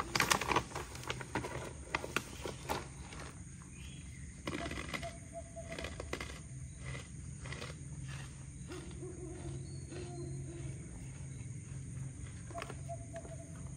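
Plastic snack packet crinkling and rustling in the first few seconds, then a quieter stretch with a steady low hum and scattered soft clicks.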